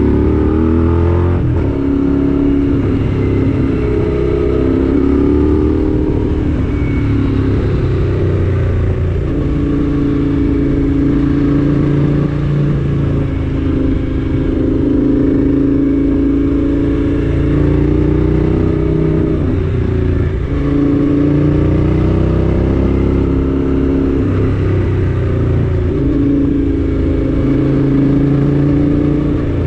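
A motor vehicle's engine driving up a hill grade, heard close up. Its pitch rises and dips again and again as it accelerates, eases off and changes gear.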